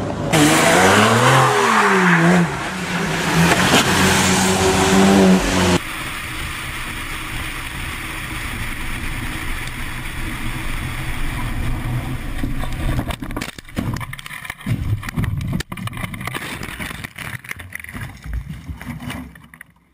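A Mercedes sedan's engine revving hard, its pitch sweeping up and down and then held high for several seconds. About six seconds in the sound cuts to steady engine and road noise inside a moving car. In the second half this gives way to a run of irregular thuds and knocks.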